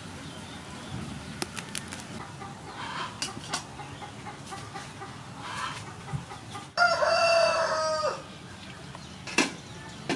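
A rooster crows once about seven seconds in, loud and just over a second long. Softer chicken clucking comes before it.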